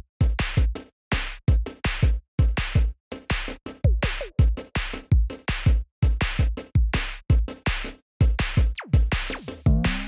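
Background electronic music with a steady, fast drum-machine beat of deep kick drums and crisp hits, with a rising synth sweep near the end.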